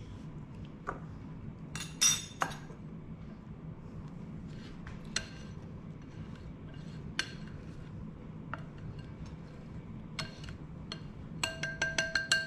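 Wire whisk clinking against a ceramic bowl while coffee, sugar and water are hand-whipped into thick dalgona foam. A few scattered taps give way, near the end, to fast steady whisking at about six strikes a second, each strike leaving the bowl ringing.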